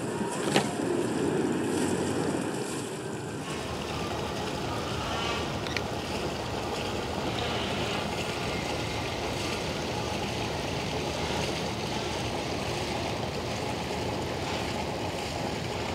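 Steady outdoor wind and water noise, with a low rumble coming in about three and a half seconds in and two light clicks, one near the start and one about six seconds in.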